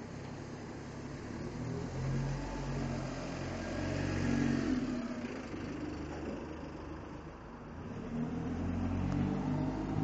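Dennis Dart SLF single-deck bus's diesel engine pulling away and accelerating past. The engine note climbs and swells several times, loudest about four seconds in, and rises again near the end.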